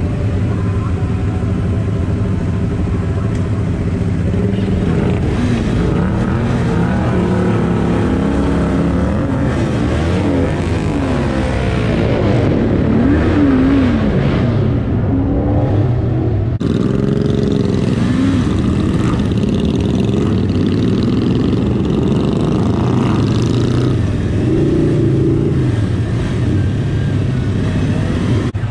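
Sport motorcycle engine running under the rider through city traffic, its pitch rising and falling repeatedly as the throttle opens and closes and the gears change.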